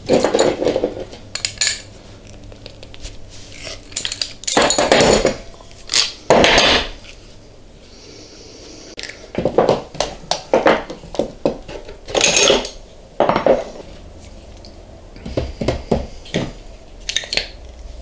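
Pliers and black iron pipe fittings clinking and clanking on a workbench as fittings are unscrewed from an air-compressor pressure-switch manifold, in irregular knocks with a few longer scraping, grinding spells.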